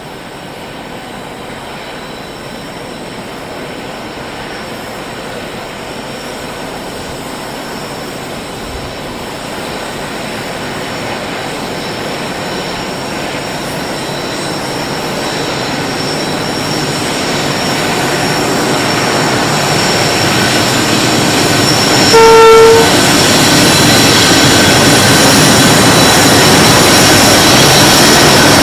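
Pacific National diesel locomotives hauling a coal train, their engines and the train's running noise growing steadily louder as they approach. About three quarters of the way through, the locomotive horn gives one short blast.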